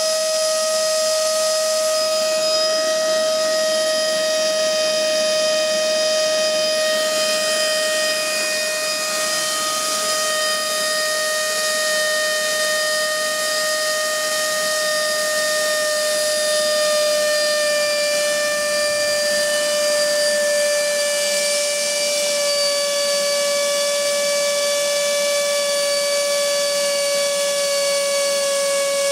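Electric motor and propeller of a Seawind RC flying boat running at steady full power on a ground run-up, a loud, steady whine. Its pitch falls slowly as the LiPo pack's voltage sags under the load.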